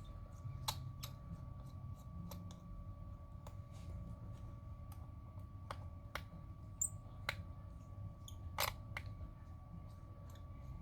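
Small, irregular clicks and taps of a precision screwdriver working the two bottom screws of an iPhone 11 Pro Max, over a faint steady hum.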